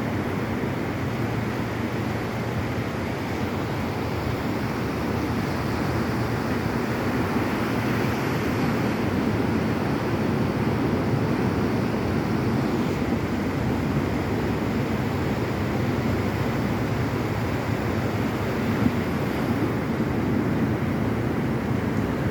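Ocean surf washing steadily onto a beach: a continuous rushing of waves that swells slightly and eases without pause.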